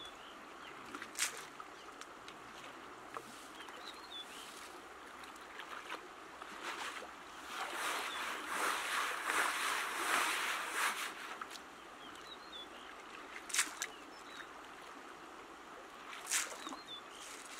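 Water sloshing and splashing as a round sieve of river gravel is swirled and dipped in shallow water to wash it for gems, louder for a few seconds in the middle, with a few sharp clicks of stones knocking, over a steady flowing stream.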